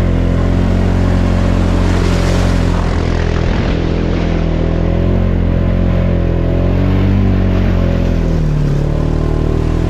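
ATV engine running steadily, its pitch wavering only slightly.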